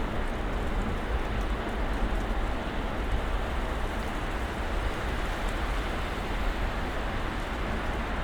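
Snowstorm ambience: a steady, even rushing noise with a low rumble underneath and no separate events.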